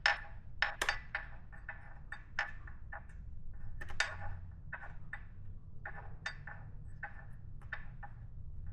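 Hand wrench clicking and clinking on metal in irregular strokes, a few clicks a second, as the KLR650's rear chain adjusters are loosened to slacken the chain.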